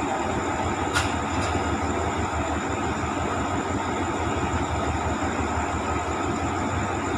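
Hitachi diesel-electric locomotive 4504 running as it creeps slowly along the platform: a steady engine rumble, with a single sharp click about a second in.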